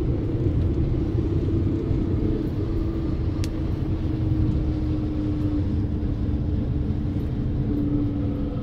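Inside the cabin of a 2001 BMW 540i, its 4.4-litre V8 and the road noise make a steady drone while the car cruises, with a low rumble and one held tone whose pitch sinks slowly.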